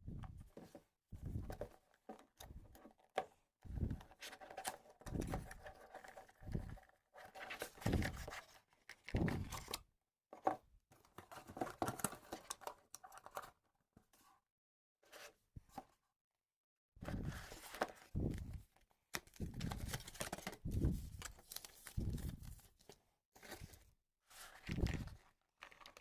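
Unboxing noises from the JBL Clip 4 speaker's retail packaging: cardboard and plastic being torn, crinkled and handled in short irregular bursts, with a few brief silent gaps.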